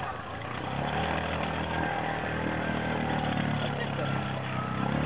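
Romet Komar moped's small two-stroke engine running at steady revs while the moped wades through deep muddy water, picking up a little about half a second in.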